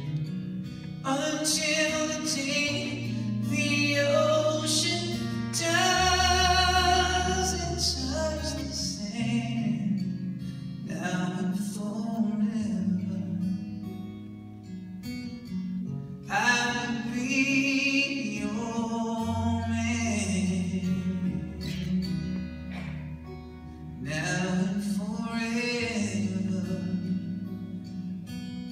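Live solo performance: a man singing long, held phrases to his own acoustic guitar, with quieter guitar-only stretches between phrases.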